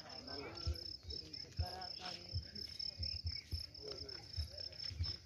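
Crickets chirping in a steady, rapidly pulsing high trill, with faint voices and occasional low thumps.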